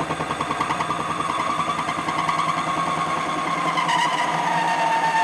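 MX-210V lathe boring bar chattering and squealing in the cut as it bores the compound crank's bearing recess: a rapidly pulsing, high ringing tone that steadies into a continuous whistle about four seconds in. The squeal persists even with WD-40 on the cut.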